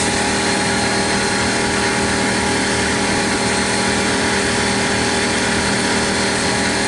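Air compressor running steadily, a loud even drone with a constant hum.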